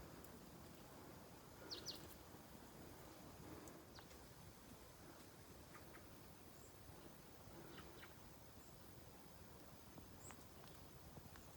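Near silence: quiet forest ambience with a few faint, brief bird chirps scattered through it, a pair of high chirps about two seconds in the loudest.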